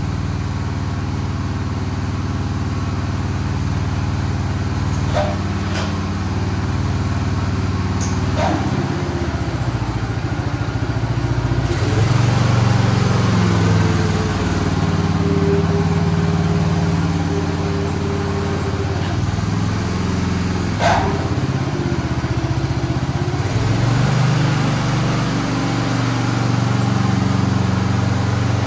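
Honda GX270 single-cylinder engine on a walk-behind tracked dumper running under load as the machine is driven, its note rising and falling with engine speed several times. A few sharp clacks stand out over the engine.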